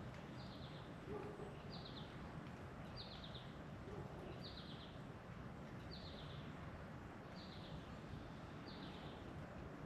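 A bird repeats a short, high call about once a second, each call a quick cluster of notes. Under it runs a steady, even outdoor hiss.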